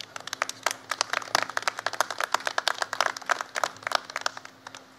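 Scattered applause from a small audience, individual claps heard distinctly, dying away just before the end.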